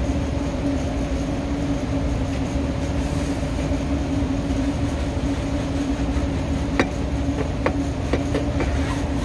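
Steady hum of rooftop air-conditioning machinery running, a constant droning tone over a low rumble. Near the end a few short scrapes and taps come from a brush working grease off an evaporator coil.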